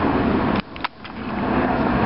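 Police helicopter flying overhead, its rotor and engine giving a loud, steady noise. The noise drops away abruptly a little over half a second in, with a sharp click, then builds back up over the next half second.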